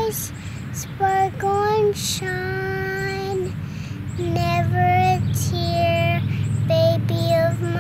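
A young boy singing wordless held notes in short phrases, each note lasting about half a second to a second, with small steps up and down in pitch. A steady low hum runs underneath.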